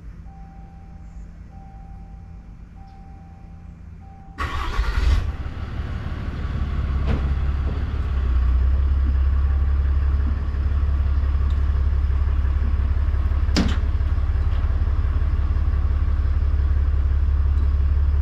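A truck's warning chime beeps repeatedly, about once a second, then the engine cranks and starts about four seconds in and settles into a steady idle. A single sharp click comes near the middle.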